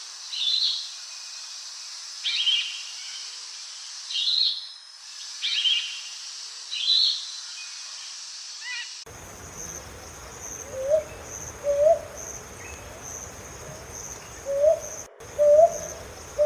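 For about nine seconds, a bird gives short shrill calls about once a second, likely an Andaman cuckooshrike. After an abrupt change, a Hume's hawk-owl gives short low hoots with an upward lilt, often in close pairs, over a steady high insect whine.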